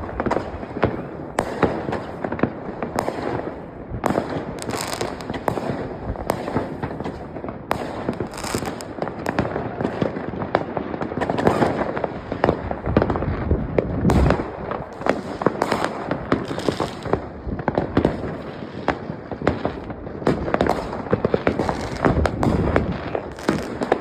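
New Year's Eve fireworks and firecrackers going off all around in a constant barrage of overlapping bangs and crackles, with no break.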